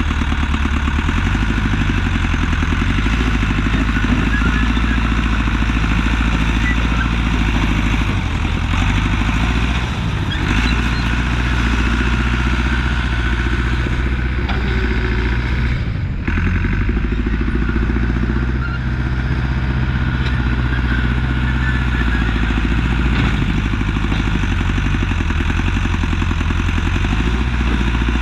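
Allis-Chalmers 655 track loader's engine running as it works, its pitch stepping up and down with the throttle several times.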